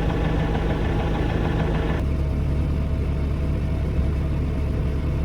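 Tractor engine running steadily. About two seconds in the sound changes abruptly to a lower, heavier tone.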